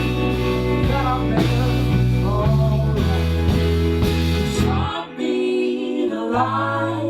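A band playing a country-rock song with a singer and guitar. The low bass notes drop out about five seconds in, leaving a thinner sound, and come back shortly before the end.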